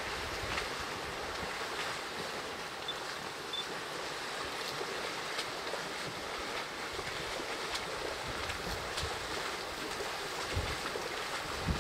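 A steady wash of water as a herd of African elephants wades through a shallow river, with a few faint splashes and ticks. There are two brief high chirps about three seconds in, and a low wind rumble on the microphone near the end.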